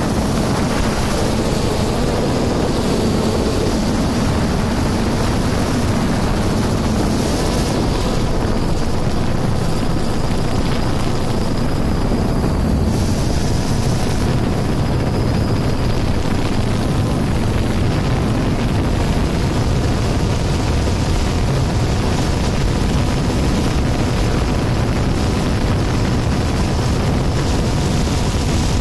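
Multicopter drone's motors and propellers running steadily in flight, a dense, unbroken buzz with a low hum in the first several seconds. Recorded close up by a phone fixed to one of the landing legs.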